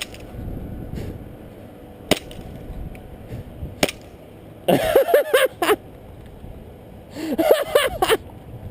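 Airsoft gun firing single shots: a few sharp cracks a second or two apart in the first four seconds. Then a person's voice in two short, wavering bursts.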